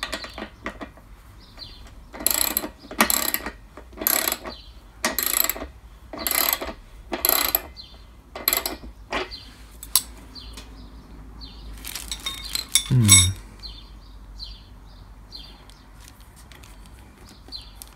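Ratchet socket wrench tightening a wheel's axle bolt against a spanner: a run of about eight short ratcheting strokes, roughly one a second, then a louder metallic clatter about two-thirds of the way through.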